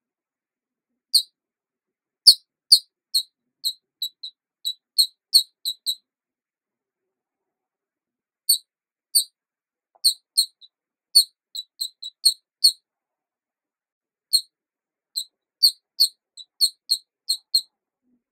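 Short, high-pitched squeaks or chirps. They come singly, then in quick runs of about a dozen at a time, with pauses of about two seconds and dead silence between the runs.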